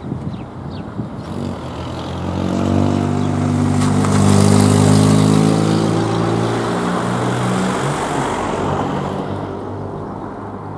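A car driving past, its engine and tyre noise growing louder over about three seconds, then fading away.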